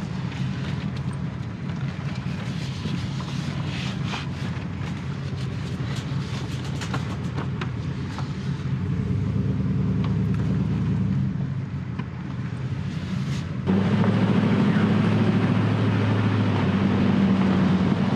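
Vehicle driving on a dirt back-country road, with a steady low engine and tyre noise and scattered small ticks. About fourteen seconds in, the noise suddenly becomes louder and rougher.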